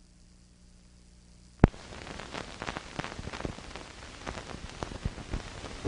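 Crackle and scattered pops of an old 1940s film soundtrack. A faint hum comes first, then a sharp click about one and a half seconds in.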